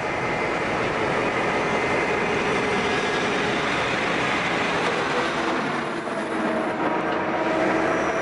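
Pacific National H-class diesel locomotive H1, running light engine with no train behind it, passing close by: a loud, steady run of the diesel engine and wheels on the rails.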